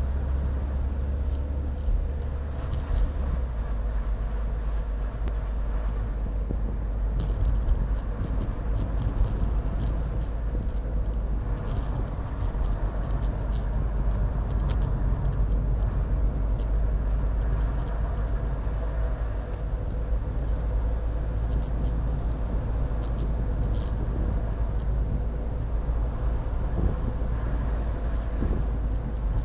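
Car cabin noise while driving slowly: a steady low rumble of engine and tyres with a faint steady hum, and scattered light ticks.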